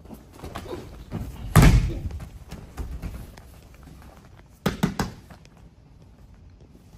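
Bodies and bare feet on a padded martial-arts mat: scuffling and gi cloth rustling, a heavy thud about a second and a half in as a body lands on the mat, then two sharp slaps close together near five seconds.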